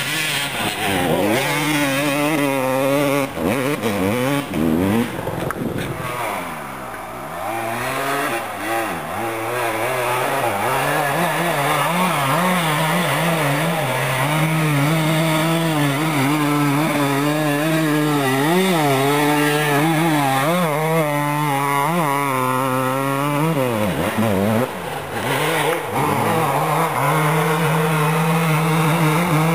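Dirt bike engine revving up and down over and over, the pitch climbing and falling with the throttle, with a brief easing off about a quarter of the way in and again near the end.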